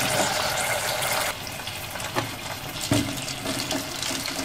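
Wontons deep-frying in oil: a dense sizzle that drops away sharply about a second in, leaving a quieter hiss with two light knocks.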